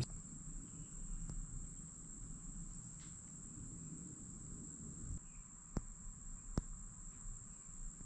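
Quiet room tone: a faint, steady high-pitched tone over a low hum, with two light clicks close together in the second half.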